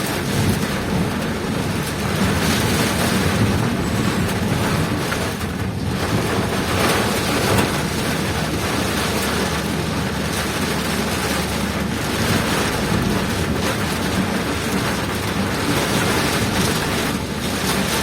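Heavy rain pouring down in strong wind: a loud, steady rush of downpour with a low rumble beneath it.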